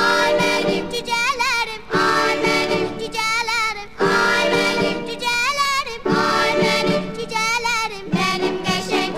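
Background music: a cheerful song with a high sung voice over steady accompaniment, in phrases about every two seconds.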